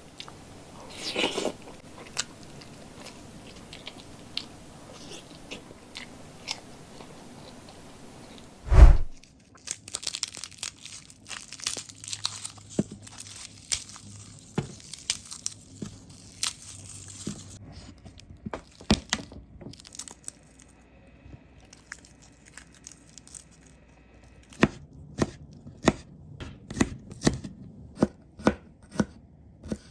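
Dry, papery garlic skins crackling and tearing as cloves are peeled by hand, then a chef's knife chopping garlic on a plastic cutting board in sharp, even knocks about two a second near the end. A single heavy thump, the loudest sound, comes about nine seconds in.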